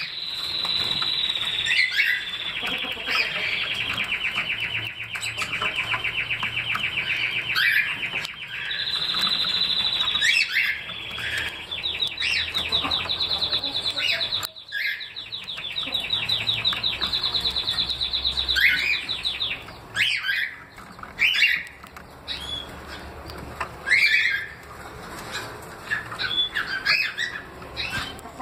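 Small caged birds calling: a long, fast trill of rapidly repeated notes that runs in stretches for about twenty seconds, then a series of separate short chirps.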